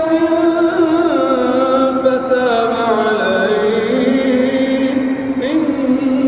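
A man's solo voice reciting the Quran in a melodic, drawn-out style, holding long notes. The pitch slides gradually downward through the middle, then climbs again near the end.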